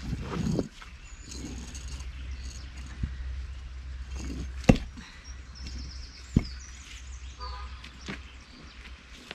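Stones being laid in rows for a low stone wall: four sharp knocks, about one every one and a half to two seconds, the loudest about halfway through, after a brief scraping shuffle at the start. Birds chirp in the background.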